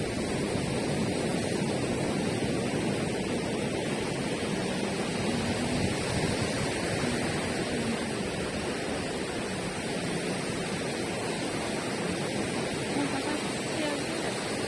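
Rough sea surf washing on the beach, a steady rushing noise with no break.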